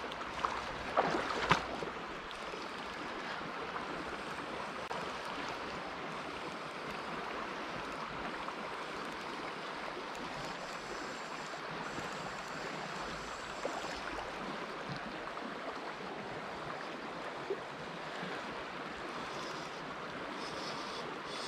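Steady rush of a shallow river's current flowing over a rippled run, with a few sharp clicks in the first two seconds and an occasional tick later.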